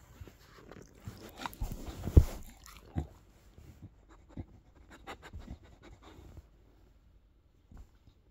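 Pit bull puppy sniffing and snuffling close to the microphone, with scattered knocks and rustles and one louder thump about two seconds in.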